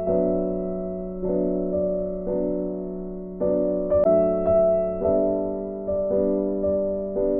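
Background music: soft piano or electric-piano chords struck every second or so, each note ringing out and fading.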